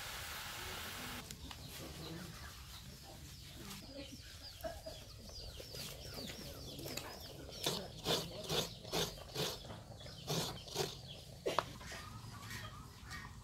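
A steady hiss of a pot boiling hard over a wood fire for about the first second, cut off suddenly. Then chickens calling: many short high chirps, followed by a run of loud sharp clucks about twice a second.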